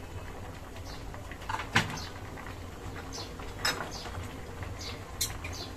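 A pot of lentils and vegetables boiling vigorously: a steady low rumble with a few sharp pops from bursting bubbles, the loudest about two seconds in and just under four seconds in.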